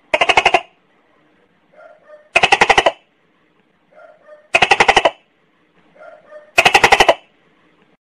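Gecko chirping: four quick trains of about eight sharp clicking chirps each, spaced about two seconds apart, with faint short calls in between.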